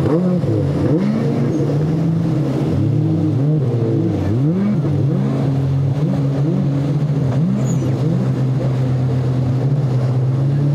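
Twin Yamaha 150 outboard engines on a Sea Hunt Game Fish 25 running hard. Their pitch surges up and down again and again over a steady engine note, then holds steadier near the end.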